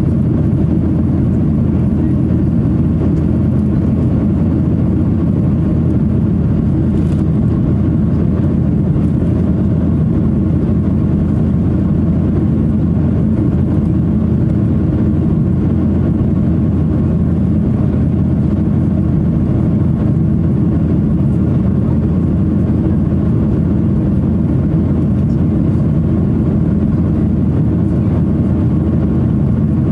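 Steady low roar of a Boeing 737-800 in flight, heard inside the cabin: CFM56 turbofan engines and rushing airflow.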